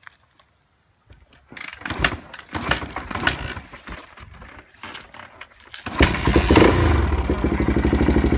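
1988 Yamaha XT350's single-cylinder four-stroke engine being cranked over in uneven bursts, then catching about six seconds in and settling into a steady, even idle on choke, through a Supertrapp IDS2 aftermarket exhaust. A few light clicks come first, before the cranking.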